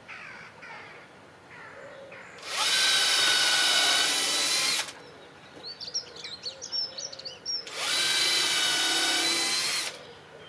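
Power drill run in two bursts of about two seconds each, its motor whine steady once up to speed. Birds chirp faintly between the bursts.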